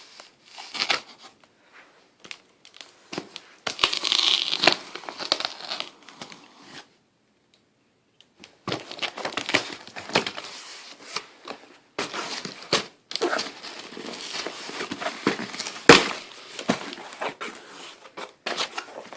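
A shipping package being torn open by hand, its wrapping crinkling and rustling in bursts. There is a brief pause about a third of the way in, and a single sharp snap about three quarters in.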